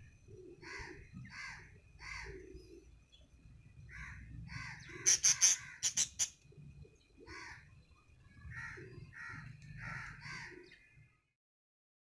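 A bird calling over and over, about ten short calls, with a quick run of sharp clicks about halfway through that is the loudest sound. The sound cuts off abruptly near the end.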